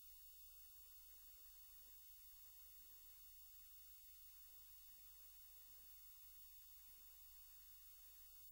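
Near silence: a faint, steady low hum.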